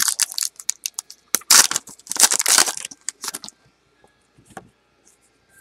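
Crinkling and rustling of trading-card packaging being handled, with sharp clicks, loudest between about one and a half and two and a half seconds in, then stopping after about three and a half seconds.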